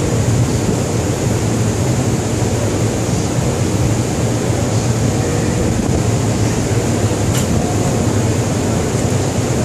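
Steady low drone of a ship's machinery and ventilation, with a brief light clink about seven seconds in.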